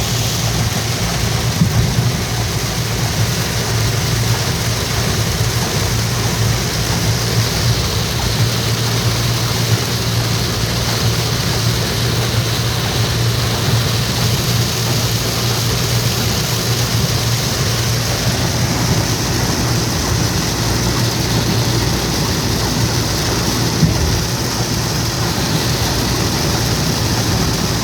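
Steady rain, a continuous hiss, with a low steady rumble underneath that eases a few seconds before the end.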